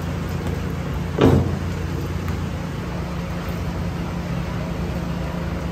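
Steady low machine hum, with one short thud about a second in.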